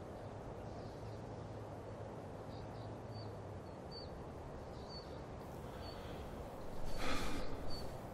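Quiet forest ambience: a steady background hiss with small, high bird chirps every half second or so from a few seconds in. A brief, louder noise comes about seven seconds in.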